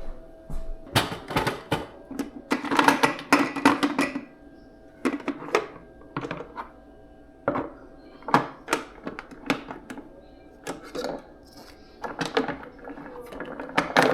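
Clatter and knocks of household objects being handled, with a faint steady hum underneath.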